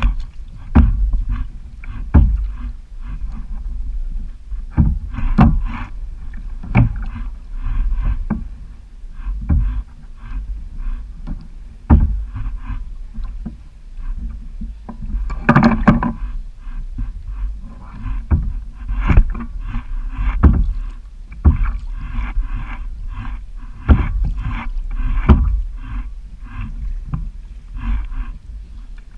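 Water splashing and slapping against a kayak in irregular knocks about once a second, with a steady low wind rumble on the microphone.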